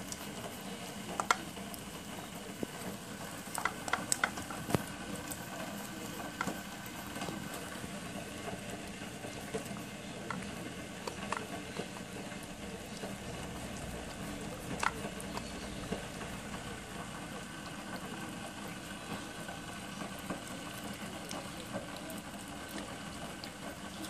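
West Highland white terrier eating from a metal-lined bowl: wet chewing and licking, with scattered sharp clicks of teeth and food against the bowl, most of them in the first five seconds, over a steady low hum.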